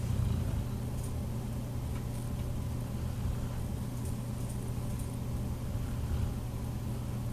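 Snoring: a low, rumbling snore that swells louder right at the start and again about six seconds in.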